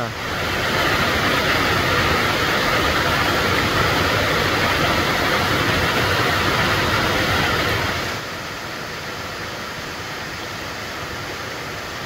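Waterfall's steady rush of falling water, loud for about eight seconds, then dropping suddenly to a softer, more distant rush.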